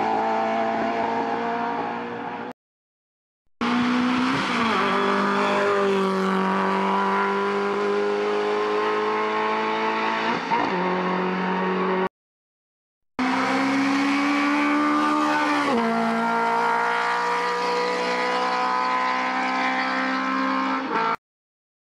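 Race cars climbing a hill flat out, one after another, engines revving high, with the pitch dropping sharply at each gear change about four, ten and sixteen seconds in. Three brief dead-silent gaps separate the cars.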